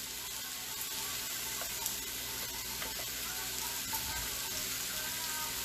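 Steak searing with sliced red onions and mushrooms on a hot stovetop griddle: a steady frying sizzle.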